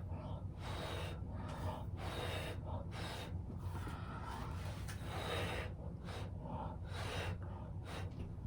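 A person blowing hard by mouth onto wet acrylic paint, a run of forceful breath rushes with short pauses between them to inhale. The breath is pushing the paint across the canvas in a Dutch pour, done without a hair dryer.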